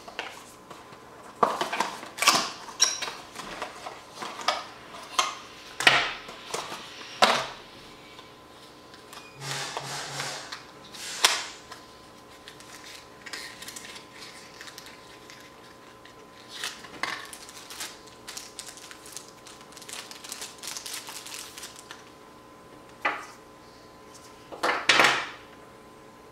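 Cardboard battery box and its paper and plastic packaging being opened and handled on a hard tabletop: irregular clicks, taps and rustles as the replacement lithium-ion camera batteries are unpacked, busiest in the first few seconds and again near the end.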